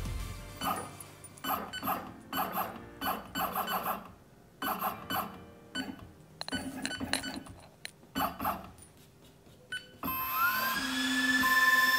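A string of short clicks and blips. About ten seconds in, the ALPHA MK-2 laser engraver's motor starts: a whine rising in pitch and settling to a steady tone as the engraver starts up for its first job.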